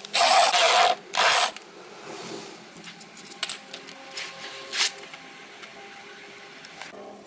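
Red corded electric drill running in two short bursts, about a second and then half a second long, driving screws through a steel hinge into pine boards. Light clicks and knocks follow, of the hinge and screws being handled on the wood.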